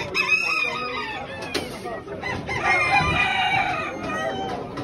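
Chickens calling in a hall full of penned show birds: roosters crowing and hens clucking, with one long crow about two seconds in as the loudest call.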